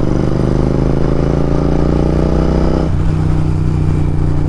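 Royal Enfield Continental GT 650's parallel-twin engine being ridden under acceleration, its pitch rising steadily, then dropping suddenly about three seconds in with an upshift and running on at a steady pitch.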